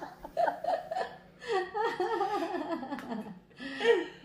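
People laughing and chuckling in several short bouts, with a few words mixed in.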